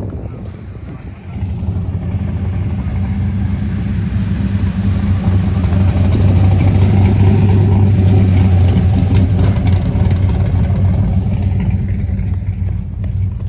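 A car engine running close by at a steady low pitch, getting louder from about a second and a half in, loudest around the middle, then easing off a little near the end.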